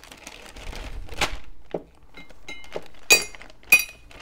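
Handling noise from repacking a jigsaw and its accessories into their box: rustling and light knocks, a dull thunk about a second in, and two sharp clicks of hard parts striking, each with a brief ring, near the end.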